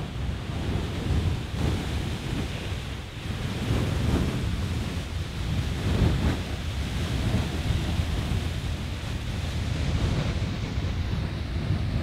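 Beehive Geyser in full eruption: the steady rushing hiss of its tall water column jetting from the cone, with wind rumbling on the microphone.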